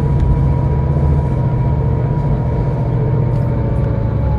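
Scania K320IB bus's diesel engine running steadily while the bus drives, heard from inside the passenger cabin, with a thin whine that slowly falls in pitch.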